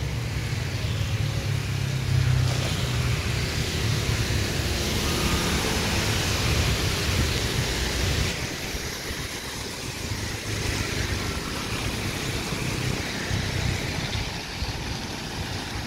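Riding a motorbike through city traffic in heavy rain: a low engine hum under a steady hiss of rain and wet road, with the hiss louder for several seconds starting about two seconds in.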